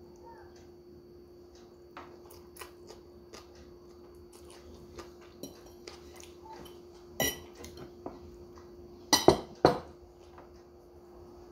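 Metal fork clinking and scraping on a plate during a meal of noodles. Small scattered clicks build to a louder clink about seven seconds in and a quick cluster of the loudest knocks a little after nine seconds.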